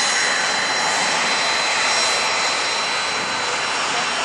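Jet airliner engines running steadily: an even rush with a thin, high whine over it.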